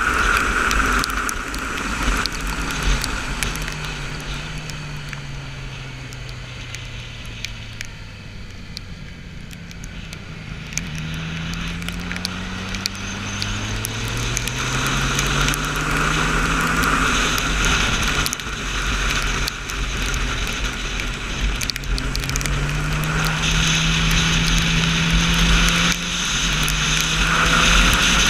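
Onboard sound of a motorcycle on a race track: the engine note falls for several seconds as the bike slows, then climbs again in rising sweeps as it accelerates through the gears. Wind rushes over the microphone throughout, loudest when the bike is at speed near the start and end.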